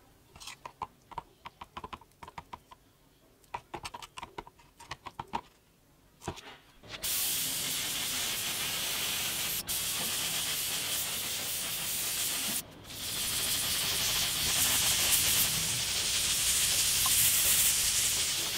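Light, irregular clicks and taps of a stirring stick against a glass jar as paint is mixed. Then, from about seven seconds, a paint sprayer hisses steadily, breaking off briefly twice.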